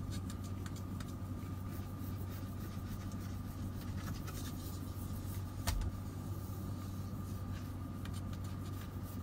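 Fingers rubbing toothpaste dry along a car wiper blade's rubber strip: a faint, scratchy rubbing over a steady low hum, with one sharper click a little past halfway. The rubbing polishes down an uneven rubber edge that made the wiper squeak and streak the glass.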